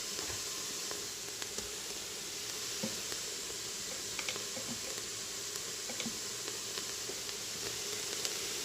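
Minced garlic, onions and vegetables sizzling steadily in an Instant Pot's inner pot on sauté mode, with a few faint clicks scattered through.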